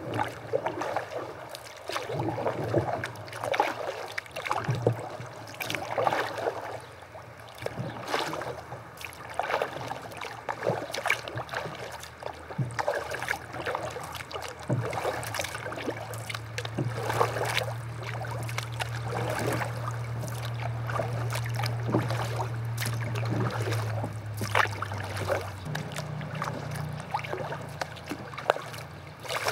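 Kayak paddles dipping into the water with repeated splashing strokes, with a steady low hum through the middle stretch.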